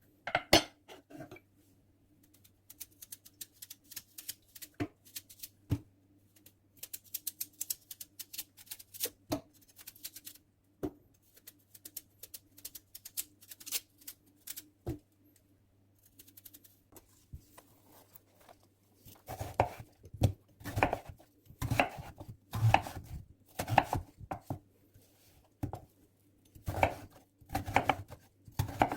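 Kitchen cooking sounds: scattered clinks and taps of utensils and dishes, then, about two-thirds through, a run of regular knocks like a knife chopping on a cutting board. A faint steady low hum lies underneath.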